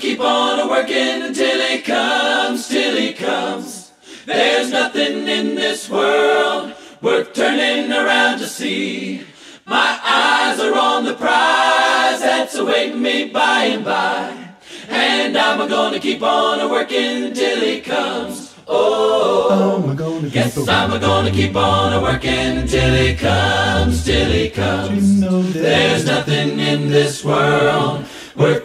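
Unaccompanied choir singing, with low bass voices joining about two-thirds of the way through.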